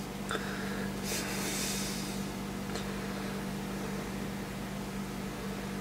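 Steady low hum with a faint hiss behind it, the room tone of the workbench, with a couple of faint ticks.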